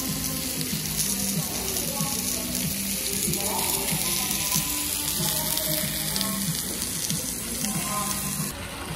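Background music with notes repeating in a steady pattern over a constant hiss, which changes abruptly near the end.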